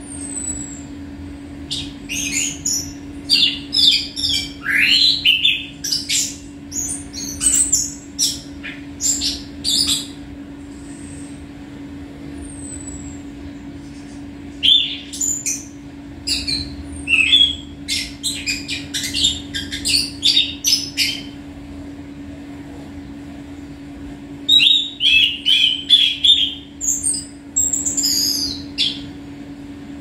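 Caged songbird singing in three long runs of quick, varied chirps and whistles, with pauses between them. A steady low hum runs underneath.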